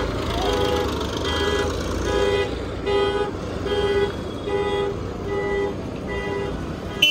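A vehicle's electronic warning beeper sounding short pitched beeps over and over, about two a second, over the low rumble of road traffic. A sharp click comes right at the end.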